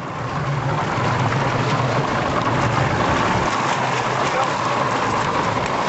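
Lake water splashing and rushing against the side of a moving boat, over a steady motor hum and wind on the microphone.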